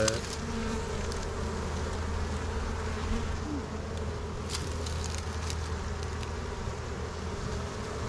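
Honey bees buzzing steadily, a dense colony swarming over a brood frame lifted out of the hive.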